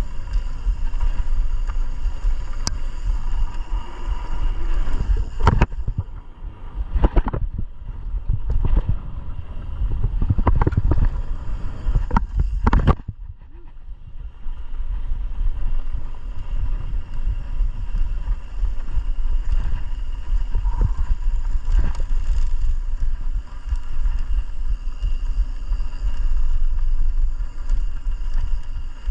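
Mountain bike being ridden on a trail: a steady low rumble of wind buffeting the microphone and tyres on the ground, with a run of sharp knocks and rattles from the bike over rough ground for several seconds in the middle.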